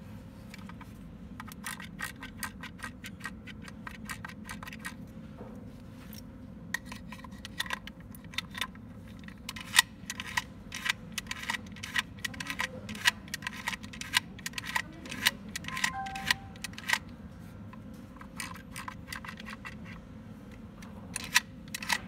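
Stainless steel 7255 silent mortise lock body worked by hand, its euro cylinder turned to move the bolt and latch: a run of small metallic clicks and ticks, sparse at first, thickest through the middle, then a few sharp clicks near the end.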